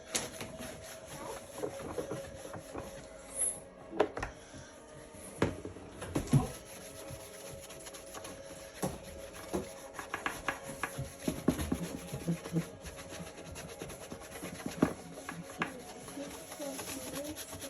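Plastic motorcycle rear-wheel covers being scrubbed and rubbed by hand, with irregular sharp knocks and clicks as the parts are handled.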